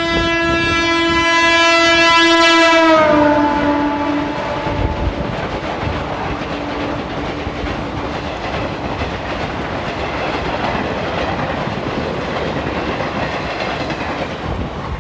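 Electric locomotive of an Indian Railways passenger train sounding a long horn blast whose pitch drops about three seconds in as it passes. The horn fades, and the coaches then rumble and clatter steadily past on the rails.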